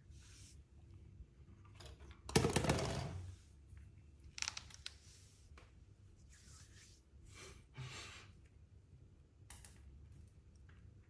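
Small plastic bottle knocked over and handled by a cat: a sudden plastic clatter and rustle about two seconds in, the loudest sound, lasting about a second, then scattered light taps and rustles.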